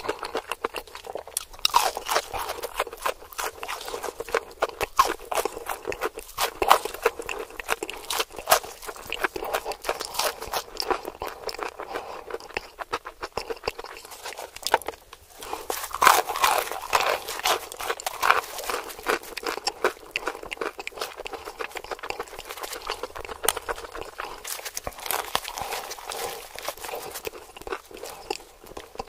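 Close-miked crunching and chewing of crispy KFC fried chicken. Dense, irregular crackles of the breaded coating run throughout, with louder bites now and then.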